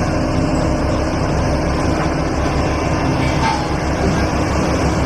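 Pressure washer running steadily, with a fast, even pulsing hum under a hiss of spray.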